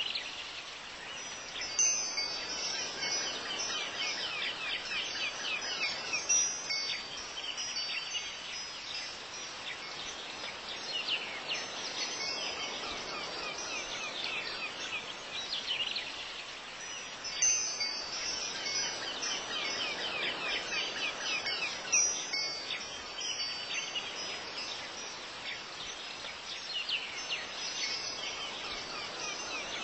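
Tinkling wind chimes ringing over a soft ambient bed, the same chime passage coming round again about every 15 seconds as a looped background track.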